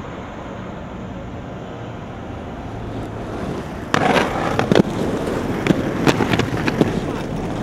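Aggressive inline skates rolling over pavement with a steady rolling noise. About four seconds in they land on a concrete ledge with a loud clack, then grind along it in a rough scrape broken by repeated sharp clicks and knocks.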